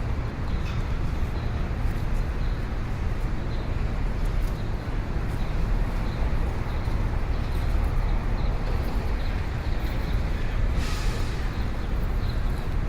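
Busy city street traffic: a steady, low rumble of vehicles, with a short hiss near the end.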